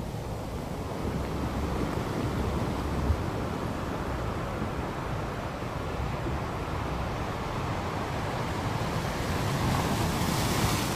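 Steady low rumble of surf on the beach with wind on the microphone, and one sharp tap about three seconds in.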